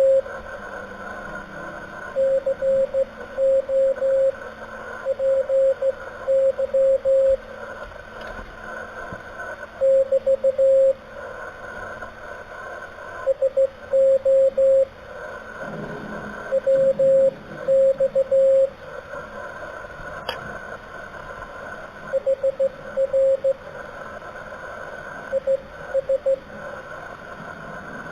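Morse code heard over an amateur radio transceiver: a single steady tone keyed on and off in dots and dashes at slow speed, over constant receiver hiss.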